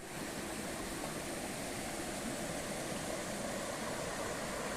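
Steady rushing water of a waterfall.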